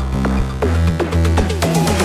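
Electronic background music with a steady bass, and a run of quick falling synth notes in the second half.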